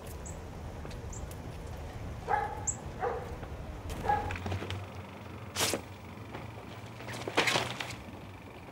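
A dog barking three times over street ambience with a low steady hum, a few faint high bird chirps among them. Later come two short rushes of hissing noise.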